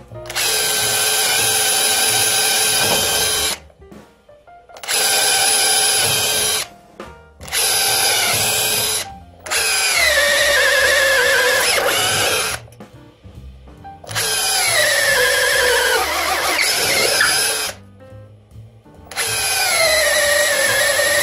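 Makita DHR243 18V brushless cordless rotary hammer boring a 21 mm auger bit into a softwood board, in six runs of a few seconds each. In the later runs the motor's whine sags in pitch as the bit bites: the tool is heavily loaded and struggles to drive the bit through the wood.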